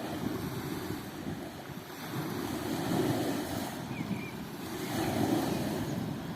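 Gentle sea waves washing on a beach, swelling twice, with wind rumbling on the microphone.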